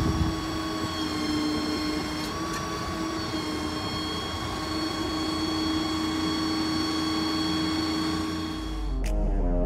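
Maintainer 3216 hydraulic crane running on a Ford F-550 with its 6.7 diesel: a steady whine of several tones over a low rumble while the boom is lowered. About nine seconds in it breaks off with a click and music starts.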